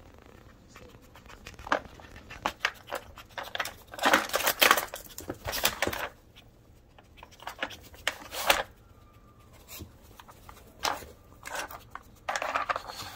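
A dog working a plastic puzzle feeder: irregular clicks, knocks and scraping as its nose pushes and lifts the toy's plastic sliders and cones, busiest about four to six seconds in.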